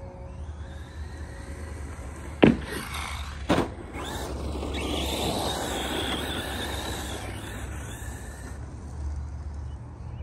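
ARRMA Mojave 4S RC short course truck coming down with two hard thuds about a second apart, then its electric motor whining and tyres rushing as it drives close past, the whine dipping in pitch and rising again.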